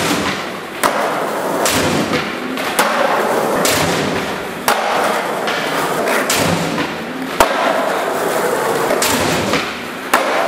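Skateboard wheels rolling steadily, broken by about eight sharp clacks and thuds of the board's tail popping and the board landing during flip tricks.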